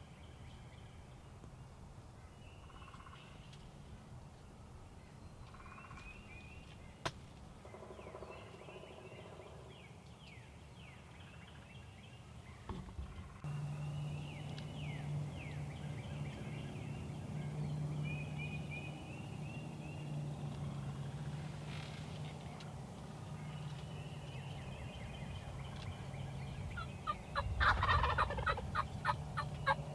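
A wild turkey gobbler gobbles, one loud rattling gobble near the end, while small songbirds chirp throughout.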